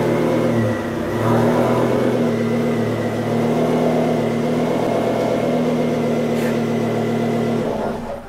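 Ford Focus RS Mk2's turbocharged five-cylinder engine running steadily, cutting off abruptly near the end.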